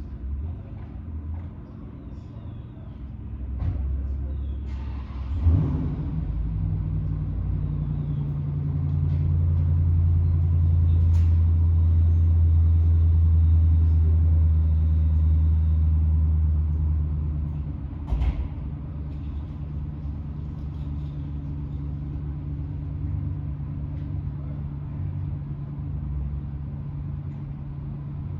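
A vehicle engine running steadily, swelling louder for several seconds in the middle and then settling back. There is a short hiss about five seconds in and a sharp knock near the end of the loud stretch.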